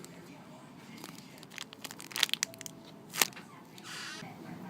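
Handling noise as a squishy toy and its packaging are moved about: crinkling, with a few sharp crackles about two and three seconds in and a short rustle near the end.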